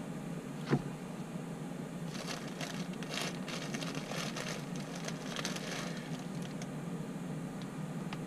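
Small electric hot pot heating water under its glass lid: a steady low hum, with a spell of crackling and ticking in the middle as the water works up towards the boil. One short knock about a second in.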